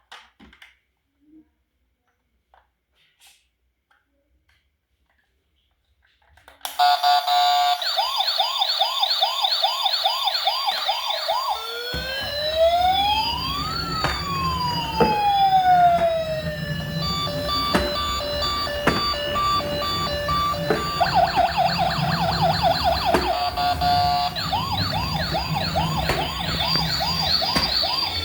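Several electronic police-style sirens overlapping, starting abruptly about six and a half seconds in after faint clicks. A fast repeating warble comes first, then slow rising-and-falling wails cross over it with a low rumble underneath, and the fast warble returns near the end.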